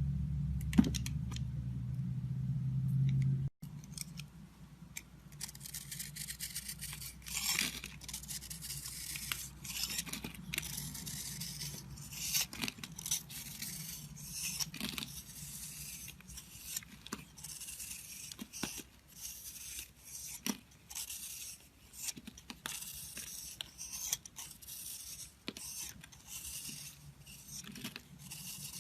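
A knife cutting and scraping into a bar of soap, heard as dense, high-pitched scraping with many small clicks. Before it, a low hum stops abruptly about three and a half seconds in.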